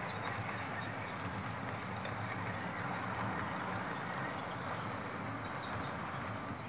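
HO-scale model train running past on a curved track: the steady running noise of its motor and metal wheels rolling on the rails.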